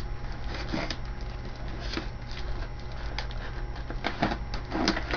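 Cardboard box and packaging being opened and handled: irregular clicks, knocks and rustles, with a few sharper knocks near the end, over a steady low hum.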